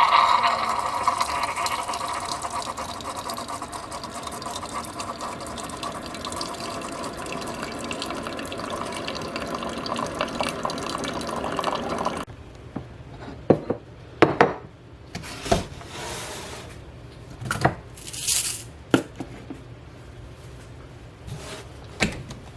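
Liquid running steadily into a container for about twelve seconds, slowly getting quieter, then stopping abruptly. Scattered short clicks and knocks follow, with a brief hiss.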